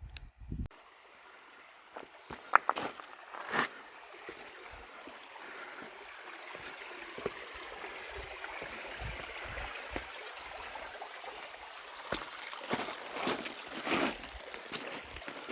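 A canyon stream running steadily over rocks, with a few sharp knocks here and there.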